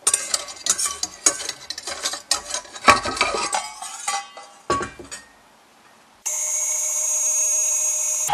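A metal mixing bowl clinks and taps against the steel bowl of a KitchenAid Artisan stand mixer as flour is tipped and knocked out of it. After a short pause, about six seconds in, the stand mixer's motor starts suddenly with a steady whine.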